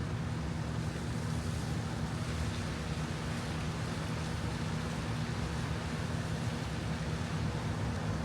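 Steady low rumble with a constant low hum and an even hiss above it, like a running vehicle or machinery.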